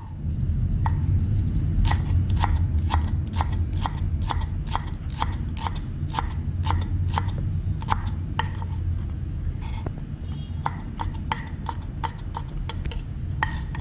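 Chef's knife slicing a green onion on a wooden cutting board: a steady run of sharp knife strikes against the board, about two or three a second, over a low steady hum.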